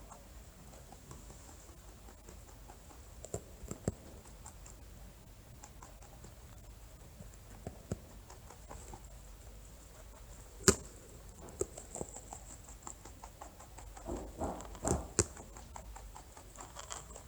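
A rabbit moving about, making scattered soft taps and clicks, with one sharp click about eleven seconds in and a short run of louder scuffling sounds near the end.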